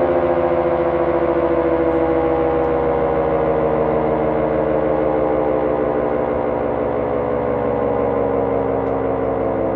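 Castle Castings electric air raid siren running on three-phase power, sounding a continuous wail whose pitch sinks slowly.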